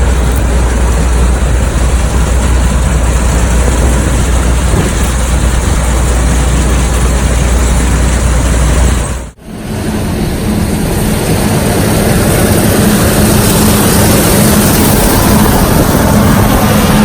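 Vehicle engines running steadily, loud and close. About nine seconds in, the sound cuts out briefly and switches to a different machine with a steady droning hum.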